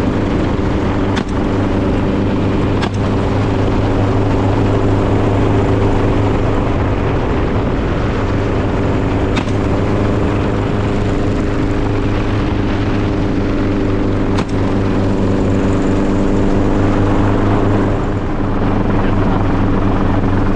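A motor running steadily with an even, unchanging drone, and four brief clicks spaced several seconds apart.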